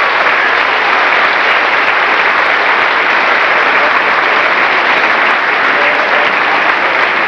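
A large audience applauding in a hall, a steady dense clapping that runs on without a break, heard through an old VHS camcorder recording.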